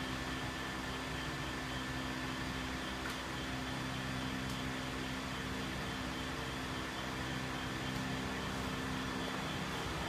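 Steady electric hum of an animated cauldron-stirring Halloween prop's motor running, with a few faint ticks.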